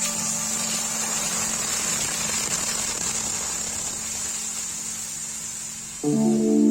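Steady machine noise: a hissing rush over a low hum, easing off slightly, with background music cutting in near the end.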